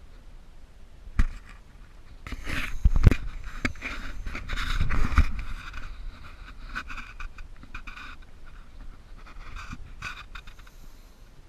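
Breathing through a full-face gas mask, with louder scraping and rustling from about two to six seconds in.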